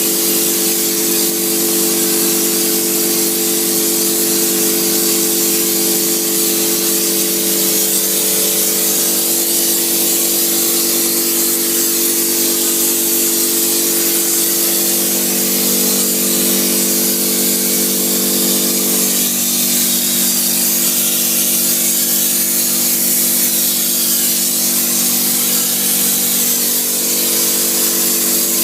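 Loud, steady hiss with a mechanical hum of several steady tones underneath; the hum shifts pitch about halfway through and again a few seconds later.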